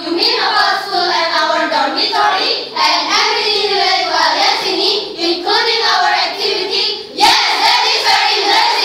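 Girls' choir of many voices singing together in unison in a choral speaking piece, with a sudden loud accent about seven seconds in.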